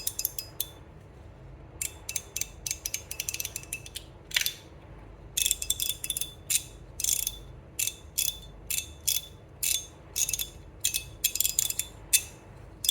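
GAO Studio Hour Glas fidget slider in polycarbonate with a PEEK liner being slid back and forth, clacking sharply against its stops. A few clicks, a short pause, then a run of clicks, some in quick clusters, at about two a second, each with a brief bright ring.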